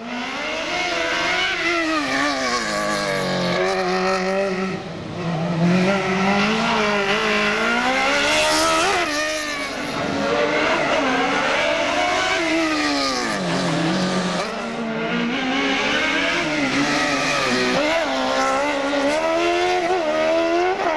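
Race car engine driven hard through a cone slalom, revving up and lifting off again and again so that its pitch keeps climbing and falling, with deeper drops about four, ten and fourteen seconds in.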